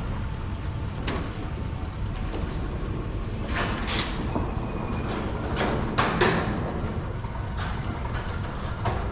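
A vehicle engine running steadily, with several clanks and knocks. The loudest clank comes about six seconds in.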